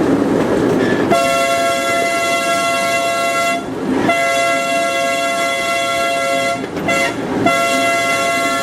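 Multi-tone train horn sounding the grade-crossing signal: two long blasts, a short one, then another long blast.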